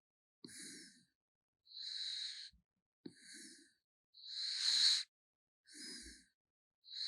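Raccoon snoring in its sleep, breathing in a steady rhythm of about one cycle every two and a half seconds. Each cycle has a louder, hissy, high-pitched breath and a softer, lower, rougher one, with brief silences between them.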